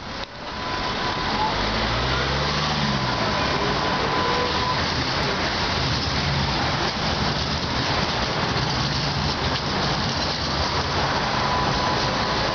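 Steady rush of street traffic as a pair of coupled Tatra T3 trams passes close by, with a brief hum that rises and falls about two seconds in and a faint steady whistle at times.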